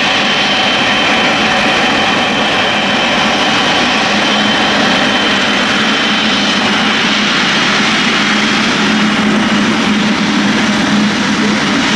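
Boeing 777-300ER's GE90 turbofans running at taxi power: a steady rushing noise with a high whine that fades over the first half and a low hum that grows stronger near the end.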